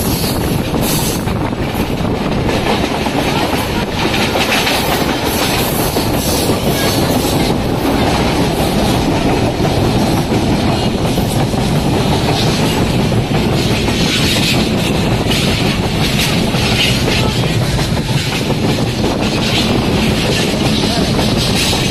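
Kamayani Express passenger train running at speed over a long river bridge, heard from on board: a steady, loud noise of wheels on rails.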